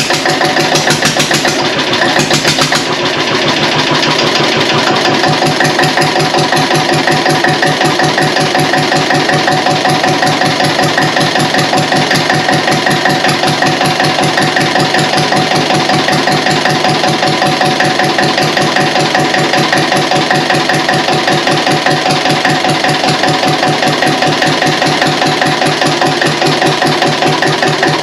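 Deutz F1L 514's single-cylinder air-cooled diesel engine running steadily at idle with a rapid, even beat of firing strokes, on its first run after a full rebuild. It runs with no exhaust manifold or silencer fitted.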